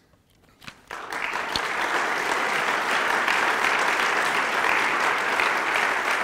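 Audience applauding: a few scattered claps, then full, steady applause from about a second in.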